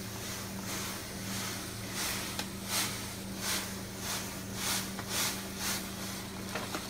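Blue crystal cat litter poured from its bag into a disposable plastic litter tray: a granular hissing rattle that swells and fades in repeated pulses, about one and a half a second. A steady low hum runs beneath.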